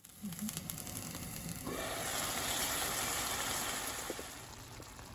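A pan of fish stew simmering and sizzling on the stove as a steady hiss. The hiss grows louder about two seconds in, then eases off near the end.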